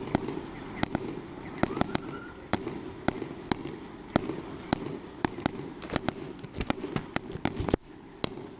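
Fireworks and firecrackers going off: sharp pops and cracks at uneven intervals, several a second, over a steady background din.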